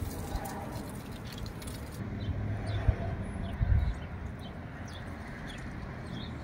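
Outdoor background noise with a steady low rumble. Two louder low bumps come near the middle, and faint short bird chirps repeat through the second half.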